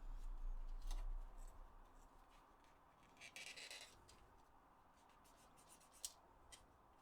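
Small handling sounds of hands working on PS4 controller parts: a low bump in the first second, a brief scraping rub about three seconds in, and scattered light clicks, with one sharper click about six seconds in.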